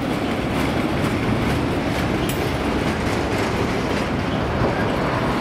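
Freight train cars rolling past close by: a steady rumble and hiss of steel wheels on rail, with faint clicks from the wheels going over the rail joints.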